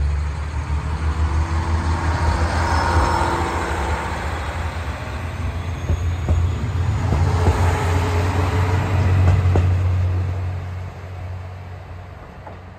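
A JR Hokkaido KiHa 54 diesel railcar pulling away from the platform, its engine running with a deep steady drone over wheel and rail noise. The sound fades as the railcar draws away, from about ten seconds in.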